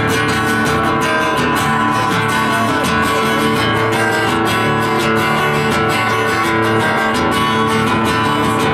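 Live acoustic band playing an instrumental passage, led by steadily strummed acoustic guitars with other string instruments, without singing.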